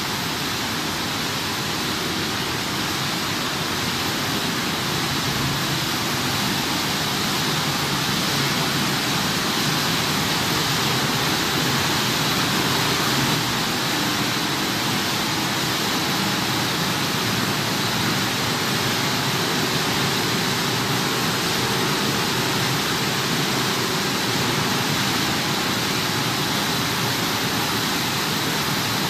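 Corn flakes processing line machinery running: a steady, even rushing noise with a faint high whine over it.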